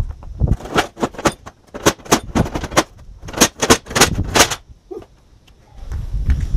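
Plate steel fire-pit pieces clanking against each other as they are handled, a quick irregular string of sharp metallic knocks that stops about four and a half seconds in.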